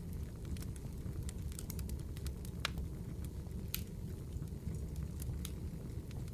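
Wood fire crackling: a steady low rumble of burning logs with scattered sharp pops and snaps, two louder snaps a little past the middle.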